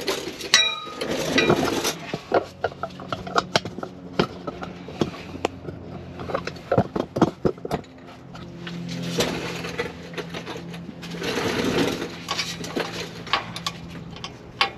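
Scattered metallic clicks and clinks of hand tools, including a ratchet wrench working the driveshaft's U-joint strap bolts, with one ringing clink about half a second in and bouts of rustling handling noise.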